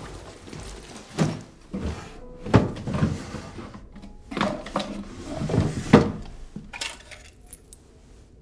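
Rummaging through a wooden dresser drawer: a run of knocks, clatters and rustles as things are shifted about, with a faint high clink near the end.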